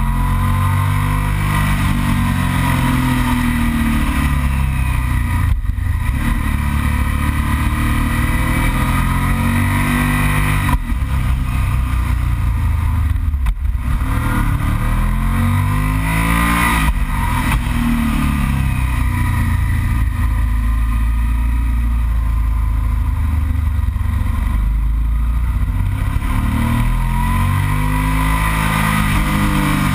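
Yamaha TDM900's parallel-twin engine accelerating and easing off through a series of bends, its pitch rising and falling again and again, with a few brief dips where the throttle closes, under steady wind rush.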